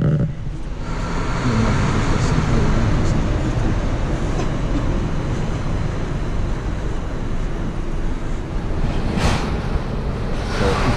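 Steady city street traffic noise from passing vehicles, with a brief hiss about nine seconds in.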